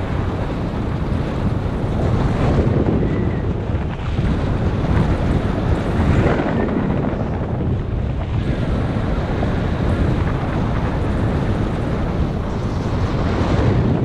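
Wind noise from the airflow of a paraglider in flight, rushing over the camera's microphone: a loud, steady rushing that swells and eases every few seconds.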